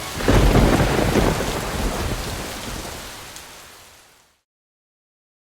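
Heavy rain with a low roll of thunder, fading out over about four seconds into silence.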